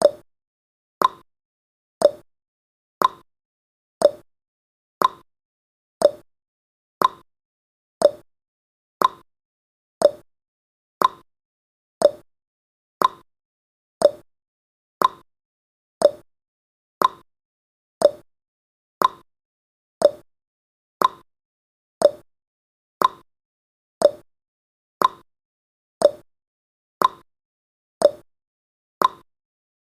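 Clock ticking sound effect of a countdown timer: one sharp tick every second, alternating between a higher and a lower click in a steady tick-tock.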